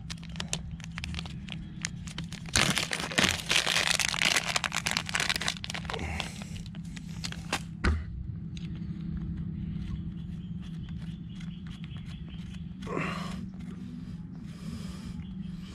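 Plastic blister packaging of valve stem caps being torn and crinkled open by hand: dense crackling and tearing, loudest in a burst a few seconds in, dying down to quieter handling after about eight seconds.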